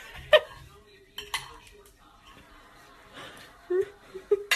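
A few sharp clinks and knocks of hard dishware, spaced irregularly. The loudest comes about a third of a second in, and there are two short louder sounds near the end.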